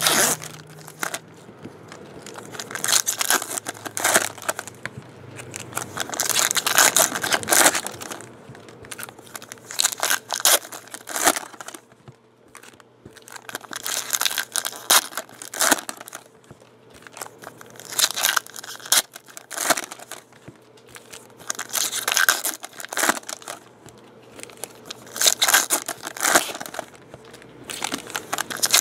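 Foil trading-card pack wrappers being torn open and crumpled by hand, a crinkling and tearing that comes in repeated irregular bursts with short pauses between.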